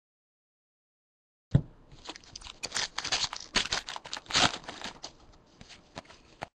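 Foil wrapper of a Panini NBA Hoops basketball card pack crinkling and tearing as it is ripped open, along with cards being handled. The sound starts about a second and a half in with a single knock, after a dead-silent start, and the crinkling is loudest in the middle.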